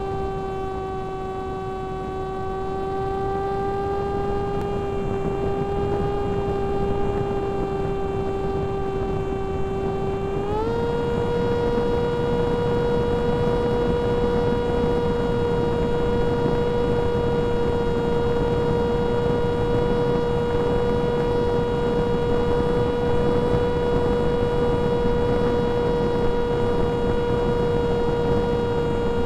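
Brushless electric motor and pusher propeller of a Flite Test Versa Wing flying wing, heard from its onboard camera: a steady whine over a rush of air. About ten seconds in, the throttle is raised and the whine steps up in pitch, then holds steady.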